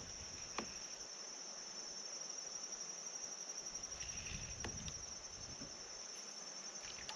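Steady high-pitched drone of insects, with a few faint clicks heard about half a second in, near five seconds and near the end.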